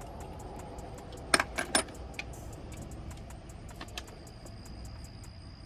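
A few sharp metallic clinks, three in quick succession about a second and a half in and a fainter one later, as metal tools or parts are handled, over a low steady background hum.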